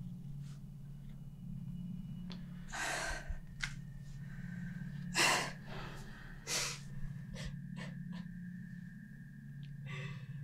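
A woman crying without words, drawing sharp, gasping sobbing breaths several times, the loudest a little after the middle. Underneath runs a steady low hum, and a thin high steady tone comes in about halfway.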